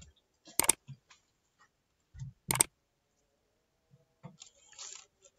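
Two sharp mouse-click sound effects about two seconds apart, marking the like and subscribe buttons being pressed in an animated like-and-subscribe overlay, with a few faint soft thumps between them.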